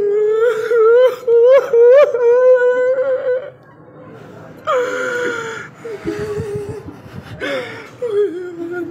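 A high-pitched human voice wailing in long, drawn-out cries with a wavering pitch: one long cry of about three seconds, then two shorter ones about halfway through and near the end.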